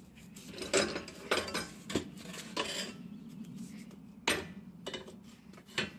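A wooden loading ramp being pulled out of a homemade steel hitch-mounted motorcycle carrier and set down on concrete: a run of irregular clanks, knocks and scrapes, the loudest about a second in and near the end.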